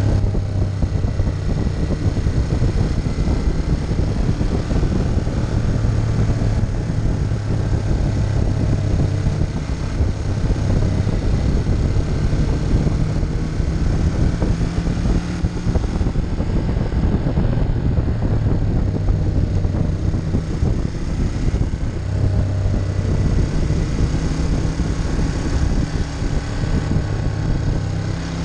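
Ducati Monster 1200's L-twin engine running at a steady cruise under wind noise on the microphone, its note rising and falling slightly through the bends.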